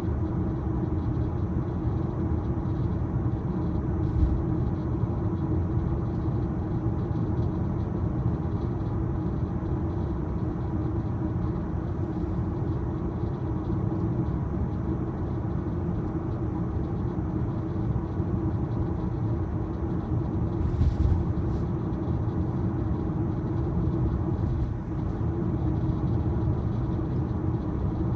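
Steady tyre and road rumble of an electric 2023 Tesla Model Y driving along, heard from inside the cabin, with a couple of brief bumps about four seconds in and about three quarters of the way through.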